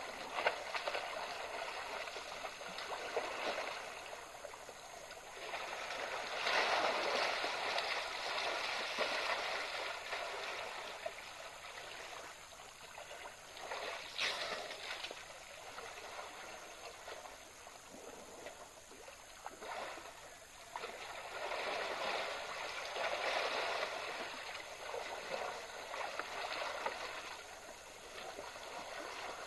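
African elephants splashing in a shallow waterhole: water sloshing and splashing in uneven surges that rise and fall, with one short sharp sound about halfway through.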